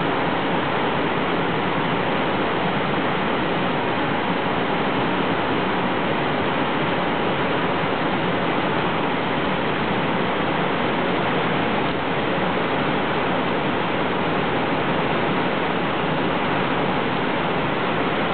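Steep creek whitewater pouring over a series of rock drops and waterfalls: a steady, unbroken rush of falling water.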